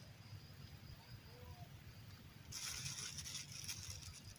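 Outdoor ambience of a steady, faint high insect drone with a few faint bird calls. A little past halfway, a louder rustling and scraping lasts about a second and a half.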